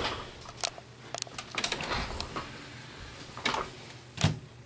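Clicks and clunks from an Epson XP-600 all-in-one inkjet printer over a low steady hum, with a sharp knock a little before the end being the loudest.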